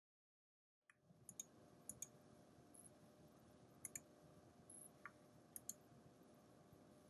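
Faint computer mouse clicks over a quiet room hum, several of them in quick pairs, starting about a second in.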